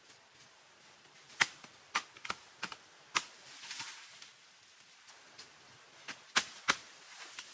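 A series of sharp, short knocks at uneven spacing, about seven in all: five bunched in the first half, then two close together near the end, with a brief rustle between.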